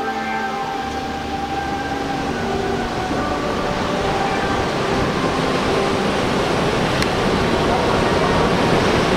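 Ocean surf breaking and washing onto a sandy beach, a steady rushing noise, with soft background music over it.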